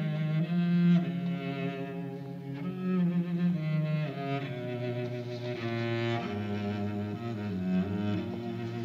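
Background film score of bowed strings led by cello, playing slow held notes; the bass line moves lower about halfway through.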